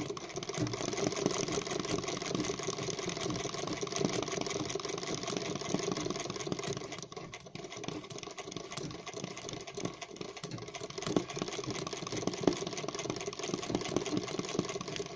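Sewing machine running steadily, its needle stitching fast to fill in an area of machine embroidery, easing briefly about halfway through.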